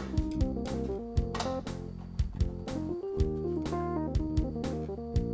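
Background music: a guitar-led instrumental with a steady drum beat.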